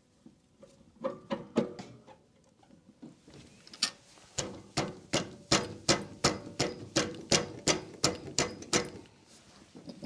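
Sharp metal-on-metal taps: a short cluster about a second in, then a steady run of about three taps a second, as the keyed pump is knocked onto the engine shaft.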